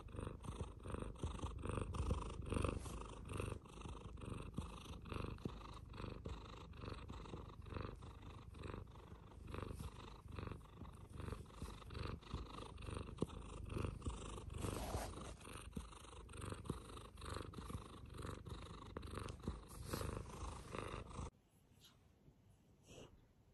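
American Shorthair silver tabby cat purring close to the microphone, a steady rhythmic rattle that cuts off suddenly near the end.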